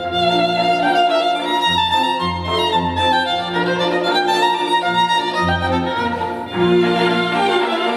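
Music with a violin melody over deep bass notes, played back through a portable Bluetooth speaker being tested for sound quality.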